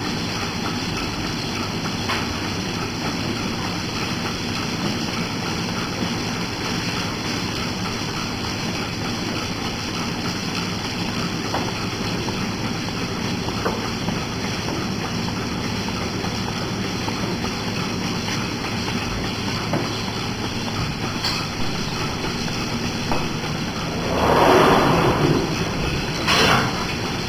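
Steady mechanical running of dairy milking equipment in a milking stall, with faint ticks. Near the end come two louder rushing sounds, the first about a second and a half long and the second brief.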